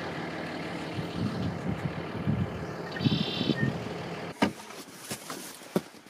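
A vehicle engine idling with a steady low hum, with a brief high-pitched chirp about three seconds in. The hum stops about four seconds in and a few sharp clicks follow.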